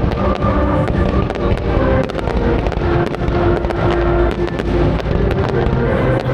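Fireworks going off in a rapid, continuous string of sharp cracks and pops, with music playing underneath.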